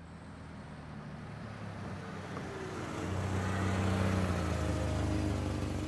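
Audi Q5 SUV driving past at low speed, its engine hum and tyre noise growing steadily louder as it comes close.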